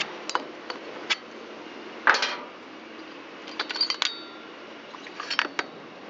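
Metal engine parts clicking, clinking and knocking as the Shindaiwa T272X string trimmer's small two-stroke engine is taken apart by hand. The loudest knock comes about two seconds in, with clusters of clinks near four seconds and near the end.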